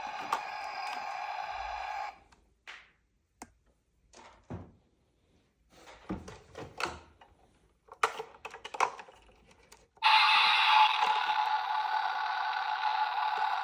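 Battery-powered toy emergency vehicle's electronic siren sound playing through its small speaker, cutting off about two seconds in. Light plastic clicks and knocks of the toy cars being handled follow, until a loud electronic siren sound starts again about ten seconds in.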